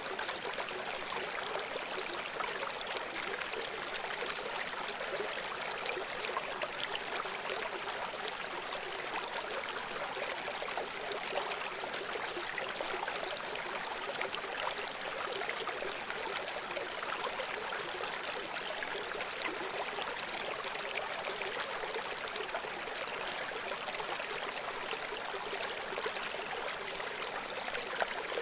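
Stream running in a steady, even rush of water with fine splashing and trickling.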